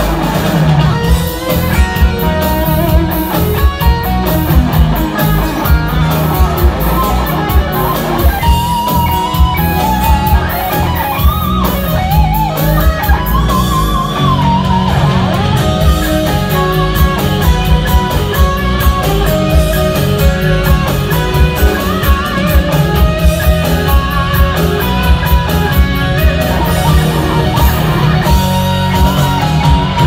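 Live instrumental heavy metal: an electric guitar plays the lead melody over drums and bass, with bent, wavering notes in the middle stretch.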